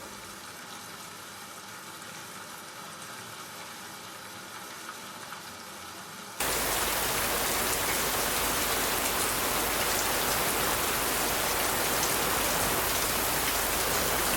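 Steady rain: a fainter hiss of rain for about six seconds, then a sudden switch to loud, close, heavy rain.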